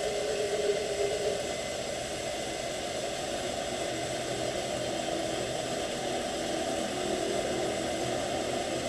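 South Bend drill press running steadily with a long 1/8-inch drill bit in aluminum, a steady motor hum with a faint whine that fades about a second in and returns faintly near the end.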